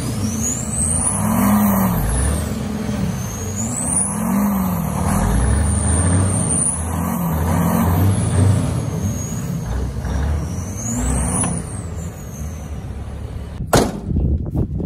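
Turbocharged diesel truck engines revving up and down about five times, each rev carrying a high turbo whistle that swoops up and falls back. A single sharp click comes near the end.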